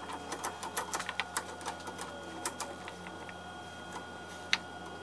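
Axelson lathe chuck clicking and rattling as it is worked by hand with its chuck key to grip a thin nylon part. The clicks come quickly and irregularly for about two and a half seconds, then one sharp click comes near the end, over a steady hum.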